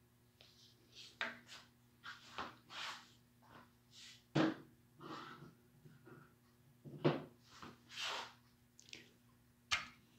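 Hands working a steel crank timing gear and a threaded installer tool on a Triumph TR6 crankshaft nose: an irregular run of short scrapes and clicks, with two sharper knocks about four and a half and seven seconds in. A steady low hum runs underneath.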